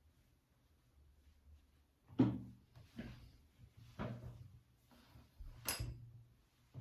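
A few knocks and thuds, about a second apart; the first is the loudest.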